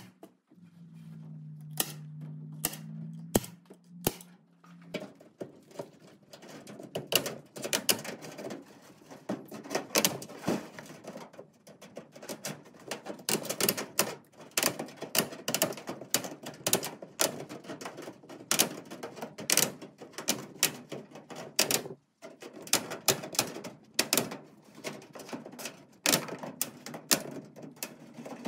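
Tin snips cutting galvanized hardware cloth, a long irregular run of sharp metallic clicks as the wire strands snap. A few louder single snaps and a low steady hum come in the first few seconds.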